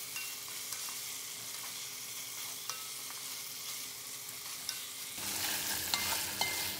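Cooked meat frying in a pan, a steady sizzle with scattered light clicks as it is stirred. About five seconds in the sizzle gets louder.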